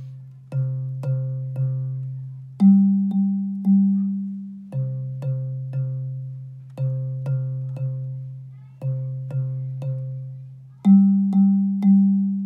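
Bass xylophone struck with soft yarn mallets, playing a simple quarter-note bass line: three low C's and a one-beat rest, then three G's, then more groups of C's and another group of G's, about two notes a second. Each wooden note rings on and fades before the next strike.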